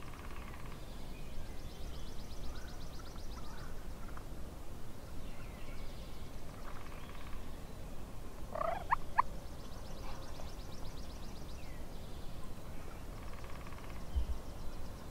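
Wild turkey gobblers gobbling several times, with other birds calling. The loudest is a short, sharp call about nine seconds in.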